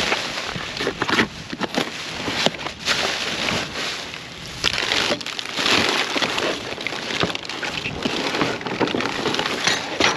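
Plastic bags, cardboard and a paper gift bag rustling and crinkling as gloved hands dig through trash, with a steady stream of crackles and a few light knocks.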